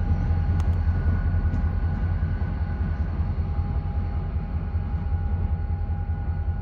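CSX diesel-electric locomotives rumbling steadily as they pull away, with a steady high whine over the engine drone; the sound fades gradually.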